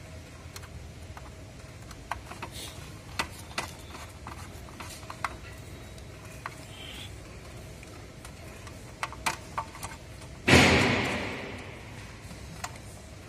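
Scattered light clicks and taps of a screwdriver and wire against the plastic terminals of a motor starter's contactor. About ten and a half seconds in, a loud sudden rush of noise that fades away over a second or so.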